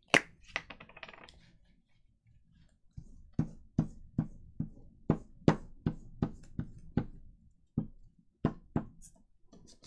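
Glue stick being worked over paper: a run of short, light knocks about two to three a second as it is stroked back and forth, after a sharp click at the start.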